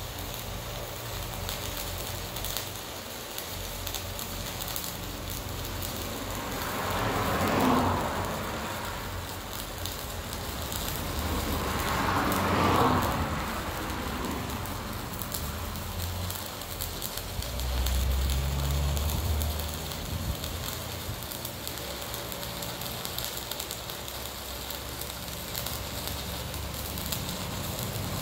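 Electric arc welding on a steel trailer fender: a steady crackling sizzle as a weld bead is run. Two louder swells of noise rise and fall about five seconds apart.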